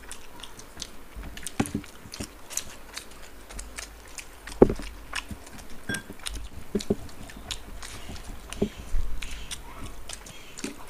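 Two people eating rice and curry with their fingers, heard close up: chewing, and fingers mixing rice on the plates, as a steady scatter of short wet clicks and smacks. The loudest comes about four and a half seconds in.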